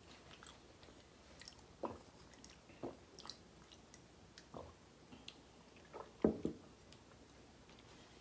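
Quiet mouth sounds of eating and drinking: scattered chewing, sips and swallows in short, separate bursts, the loudest about six seconds in.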